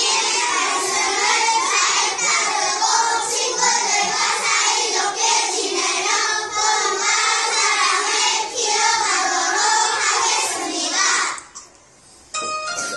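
A class of first-grade children singing together in unison. The singing stops about eleven seconds in, and after a brief pause a few short high instrument notes begin near the end.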